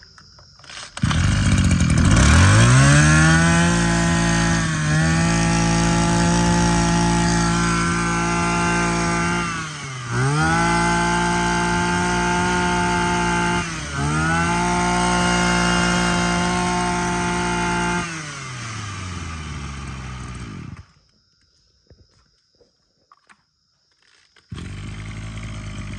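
Maruyama KC23 23 cc two-stroke brush cutter engine catching about a second in and revving up and down with the throttle, dipping and climbing again three times. Then it winds down and stops once it is switched off, followed by a short quieter steady hum near the end.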